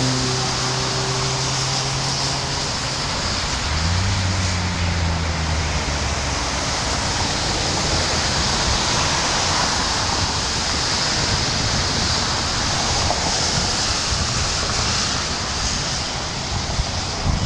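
Steady rushing of floodwater swirling down a whirlpool into a culvert drain. A low engine hum runs through the first six seconds and rises in pitch about four seconds in.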